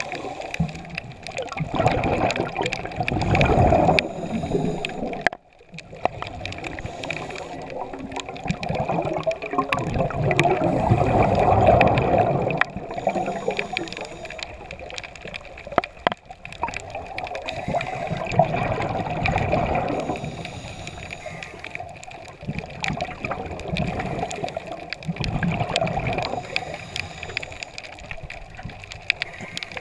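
Scuba regulator breathing heard underwater: gurgling rushes of exhaled bubbles about four times, with quieter stretches of breathing in between.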